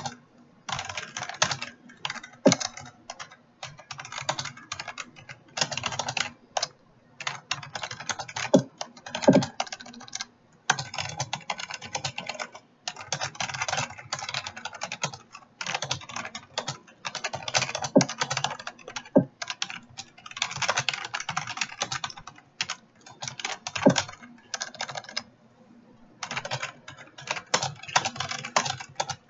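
Fast typing on a computer keyboard, quick runs of keystrokes broken by short pauses, with an occasional louder single key stroke.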